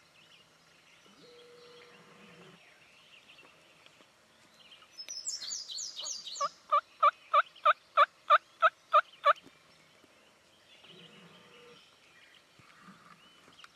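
A wild turkey series of about ten loud, evenly spaced yelps, a little over three a second, lasting about three seconds. Just before it come a few quick high falling chirps from a small songbird.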